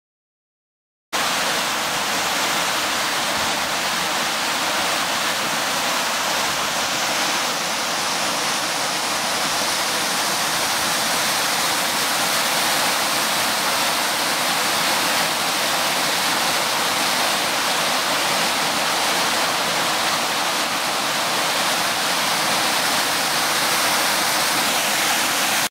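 Steady rush of a waterfall cascading down over boulders into a shallow pool, starting abruptly about a second in.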